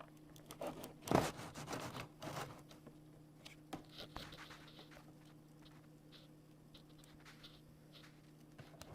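Handling noise from the vacuum cleaner as its handle is lowered and its spring-loaded base settles onto the floor: a burst of plastic clicks and scrapes about a second in, then faint scattered ticks, over a low steady hum.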